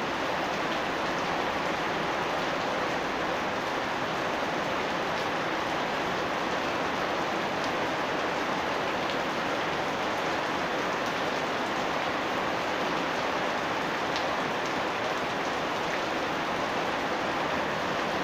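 Steady rain falling in a house yard, an even hiss with faint scattered drop ticks.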